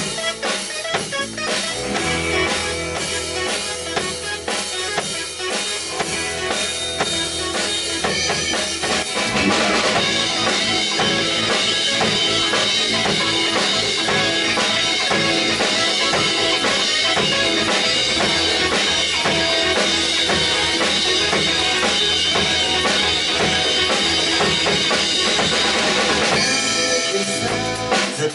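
Band music without vocals: a drum kit keeps a steady beat with bass drum and snare. A bass line comes in about two seconds in, and the whole band plays fuller from about nine seconds in, thinning out again near the end.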